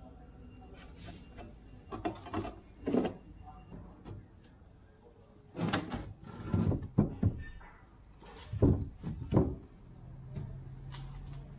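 A rigid moulded boat panel being handled and fitted into place: several clusters of knocks, bumps and scrapes against the surface it sits on. A low steady hum starts near the end.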